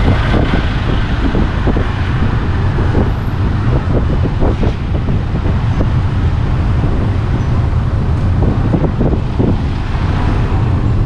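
Steady low rumble of a car driving along a street, heard from inside the car, with wind buffeting the microphone.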